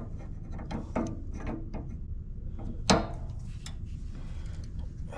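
Hand ratchet and socket working on a bolt: irregular clicking and metal clinks, with one sharper knock about three seconds in.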